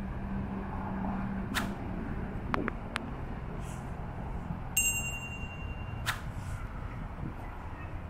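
Outdoor ambience: a steady low rumble with a few sharp clicks, and one brief metallic ping ringing for about a second near the middle, the loudest sound.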